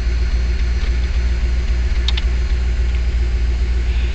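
A car engine idling steadily, with a few faint clicks from a hand handling the trunk lining.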